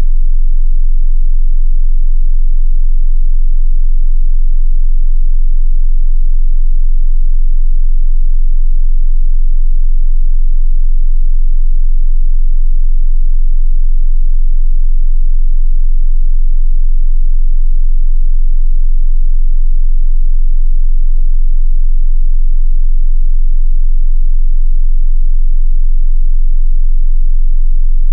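Steady 22 Hz sine-wave test tone, a continuous very deep bass hum meant for testing subwoofers. A faint click sounds once about three-quarters of the way through.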